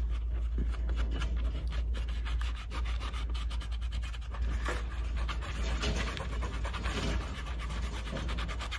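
Fingertips rubbing over an embossed chair seat, working water-based filler into its cracks: a soft, continuous scratchy rubbing over a steady low hum.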